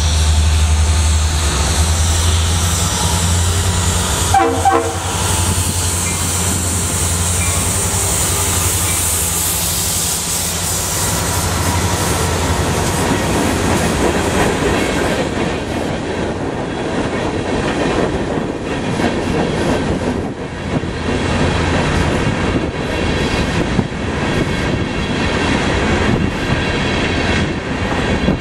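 Norfolk Southern diesel locomotives passing close with engines running, with a short horn sound about four and a half seconds in. Then a long train of coal hopper cars rolls by, wheels clacking over the rail joints.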